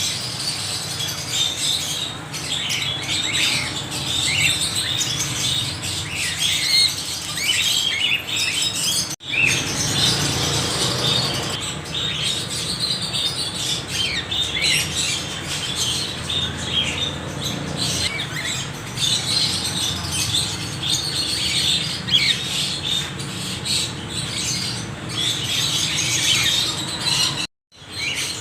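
A flock of parrots chattering and squawking together, many short calls overlapping with no pause. The sound cuts out abruptly about nine seconds in and again near the end, then resumes.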